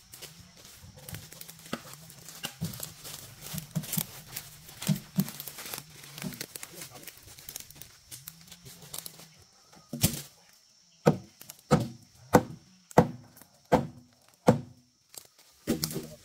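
Wooden clunks and knocks of logs being handled and stacked, over a low hum. In the second half comes a regular run of about seven loud, sharp wooden strikes roughly two-thirds of a second apart.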